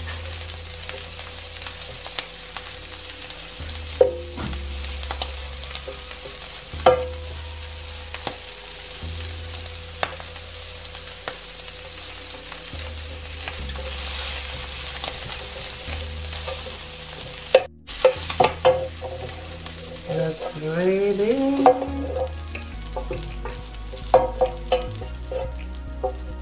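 Prawns sizzling in hot oil in a non-stick electric skillet, with metal tongs clicking against the pan now and then as they are turned. After a short break in the sound, a spatula scrapes and taps across the oily pan.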